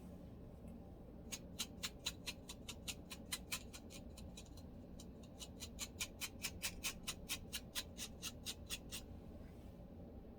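Fine-toothed lice comb scraping across a dry, flaky scalp to lift dandruff, in quick sharp strokes about four or five a second. The strokes start about a second in and stop about a second before the end.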